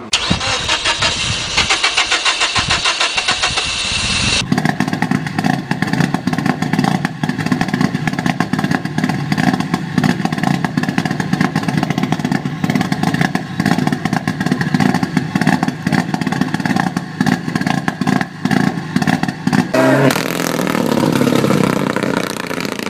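Turbocharged 2.0-litre 4G63 inline-four of a Mitsubishi Lancer Evo 9 Group N rally car on a Pectel engine ECU, idling with a rough, rhythmic, pulsing beat. It opens with a few seconds of rapid, bright crackling, and after about 20 seconds the sound turns harsher and denser as the anti-lag system is switched on.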